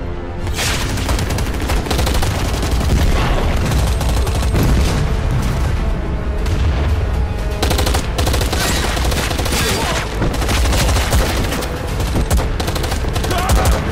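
Battle-scene soundtrack: dense rapid gunfire and machine-gun fire with booming explosions, over a film score. It breaks out suddenly about half a second in.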